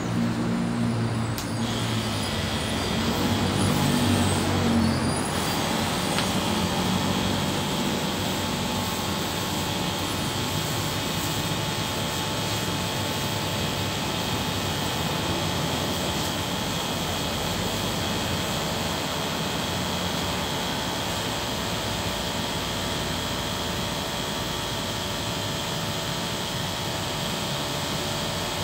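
Motorized sprayer pump running steadily, pushing liquid through the hose to spray the citrus trees. A steady high hiss joins the motor's drone about a second and a half in.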